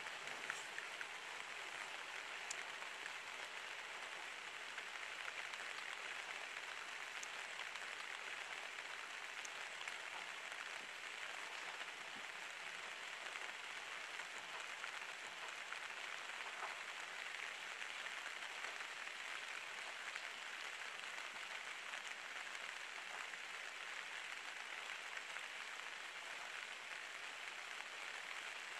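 Steady rain falling on the surrounding forest foliage, an even hiss, with a few sharper drop ticks in the first ten seconds.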